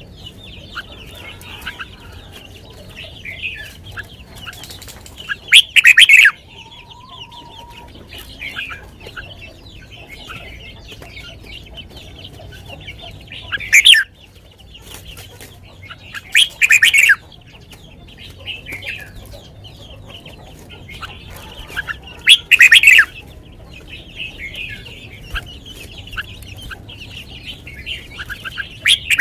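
Red-whiskered bulbul singing loud short song phrases five times, every six to eight seconds, over a steady background of chirping birds.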